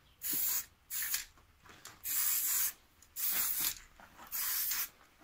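Aerosol spray-paint can being sprayed in five short bursts of hiss, each about half a second long, with brief pauses between them.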